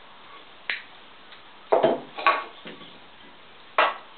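Several short, sharp clinks and knocks of hand tools being handled on a wooden workbench as diagonal cutters are used on string, with the loudest pair of knocks about two seconds in.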